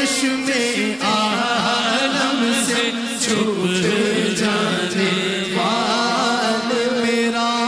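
Male naat reciters singing an Urdu naat into microphones without instruments: a lead voice moving through the melody over a steady held note from the other singers.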